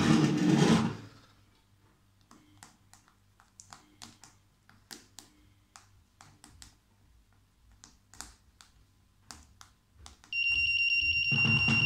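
Handling noise in the first second, then a run of short, soft clicks as fingers press keys on a membrane keypad. About a second and a half before the end, the fake bomb's piezo buzzer starts a steady high-pitched alarm tone.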